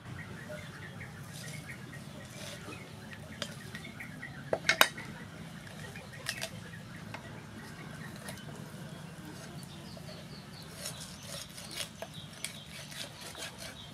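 A steel cleaver knocks sharply on a wooden chopping block a few times about five seconds in, the loudest sound. Near the end comes a run of small clicks and cracks as the cleaver cuts into a raw whole chicken. Birds chirp faintly early on.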